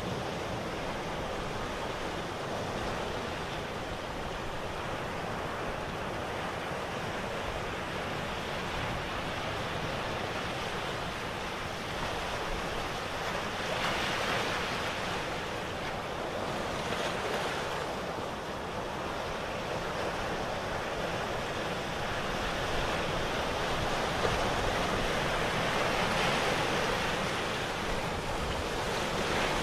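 Plastic crayon rubbing back and forth on paper while colouring in, a continuous scratchy hiss that gets louder about halfway through and again near the end.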